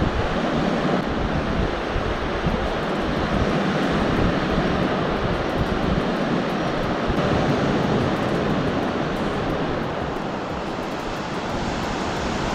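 Steady rush of Gulf of Mexico surf breaking along the beach, with wind rumbling on the microphone.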